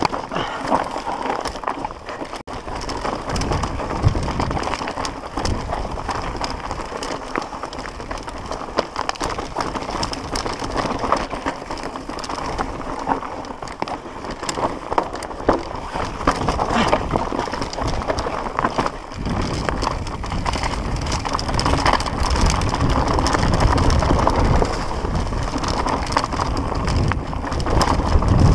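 Mountain bike descending a rough trail at speed: tyres crunching and skittering over loose rock and dirt, the bike rattling and clattering over the bumps. Wind rumble on the camera microphone grows stronger in the second half.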